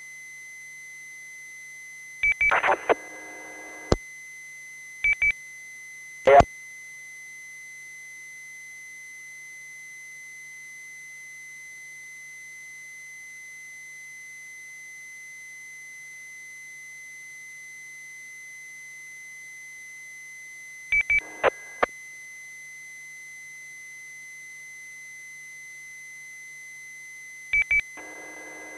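Open two-way radio channel with nobody speaking: pairs of short high beeps, each followed by a brief burst of several steady tones at once, come a few times from radios keying up. A single sharp burst comes at about 4 s and another at about 6 s. A faint steady high tone sits under it all.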